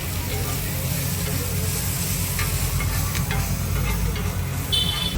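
Food sizzling on a hot pan, a steady frying hiss with a low rumble underneath, and a brief high-pitched beep near the end.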